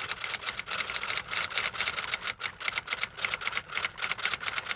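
Rapid, irregular mechanical clicking, several sharp clicks a second, running on without a break.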